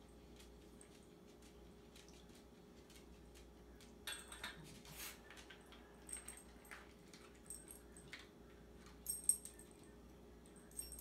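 A small dog nosing at a stainless steel bowl of dry kibble: its collar tag jingles and clinks against the metal bowl in scattered bursts starting about four seconds in, the loudest clink about nine seconds in.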